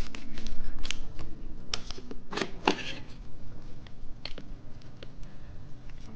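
Popping candy being sprinkled from its packet onto a sweet: an irregular dry rustle with scattered sharp clicks, busiest in the first three seconds and thinning out after.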